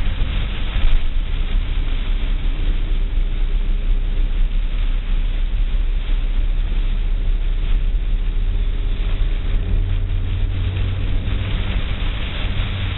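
A car driving: a steady low rumble of engine and road noise with an even hiss over it.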